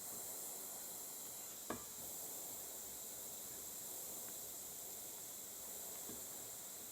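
Butane pencil-tip torch with its flame exposed, hissing steadily while it heats a silver-solder joint, with one short tap about a second and a half in.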